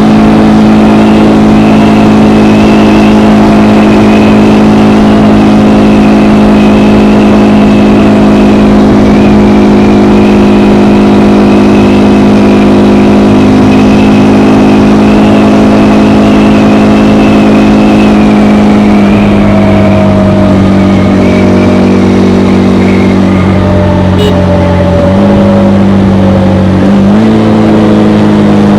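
KTM Gen 3 Duke's single-cylinder engine through its stock exhaust, running at a steady cruise, loud and even. Near the end the engine note drops and then picks up again in steps as the throttle is eased and reopened.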